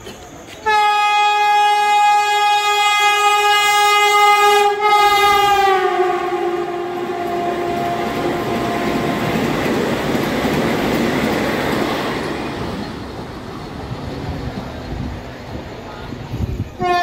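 Vande Bharat Express electric train set sounding a long horn blast with a short break as it approaches, the horn's pitch dropping as the train passes at speed. Then the rushing of the coaches and wheels on the rails as it runs through without stopping, tailing off as it recedes, with a short horn toot near the end.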